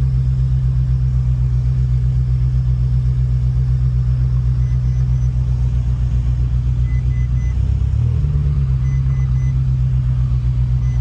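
Ferrari 458 Italia's 4.5-litre naturally aspirated V8 idling steadily, its note shifting slightly about eight seconds in. Faint short electronic beeps sound in small groups partway through.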